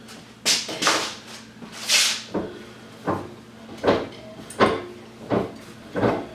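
Irregular knocks and clatters of things being handled and set down, about nine in all, over a steady low hum.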